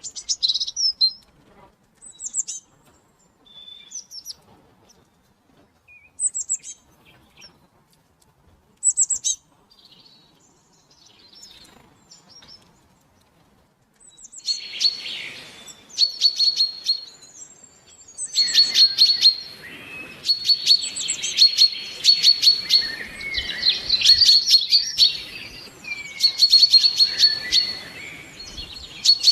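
Songbirds singing: scattered short, high chirps at first, then from about halfway a louder, busier chorus of rapid repeated high notes.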